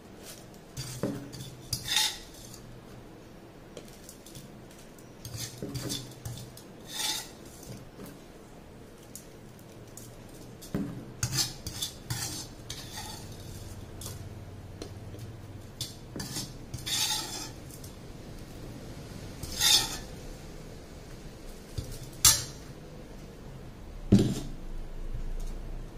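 A metal spoon scraping and clinking against a pan as chopped red chillies are mixed with spices for pickle, in short bouts every few seconds. A dull knock near the end.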